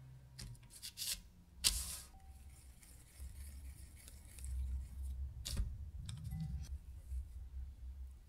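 Quiet hand-handling of cookie dough on a parchment-lined baking tray: a crisp rustle of parchment paper about two seconds in and a sharp tap a few seconds later. Between them comes the soft, low rubbing of dough being rolled between the palms.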